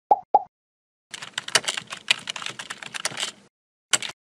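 Two short pops, then computer-keyboard typing for about two and a half seconds, then a single sharp click near the end: the sound of text being typed into a search bar and entered.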